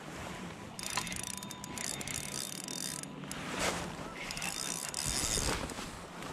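Spinning reel being cranked in two spells, its gears whirring with fine ticks, as a hooked spotted bass is reeled in.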